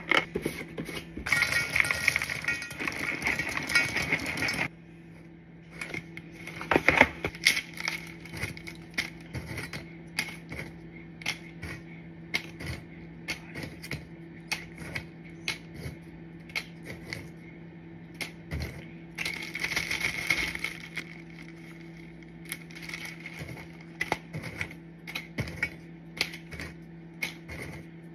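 Animal crackers poured from a plastic tub into a stainless steel bowl, a dense rattling clatter for about three seconds. Then a long run of small clicks and clinks as crackers are picked out of the steel bowl and dropped into plastic zip-top bags, with a second, shorter burst of clatter about two-thirds of the way through.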